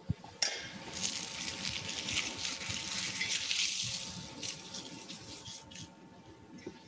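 Communion bread being broken and torn by hand: a crisp crackling rustle that starts about half a second in and fades out after about five seconds.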